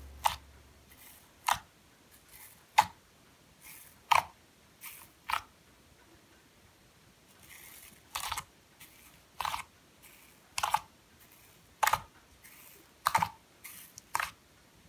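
Fingertips poking into sticky, still-wet chocolate slime in a glass dish and pulling free, a short squish with each poke, about one a second, with a pause in the middle.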